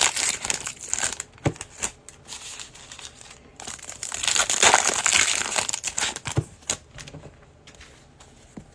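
Trading-card pack wrappers being torn open and crumpled: two bouts of crinkling, the second about four seconds in, with a few sharp clicks between.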